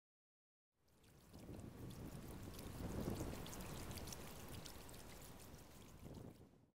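Water splashing and trickling from a kayak paddle's blades as it is stroked through the water, with fine dripping ticks. It fades in about a second in, swells midway and cuts off abruptly near the end.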